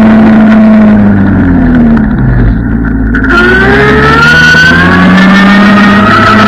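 Stand-up scooter's motor running, its pitch dropping as it slows for about two seconds, then rising steadily as it speeds up again, over a steady rush of wind and road noise.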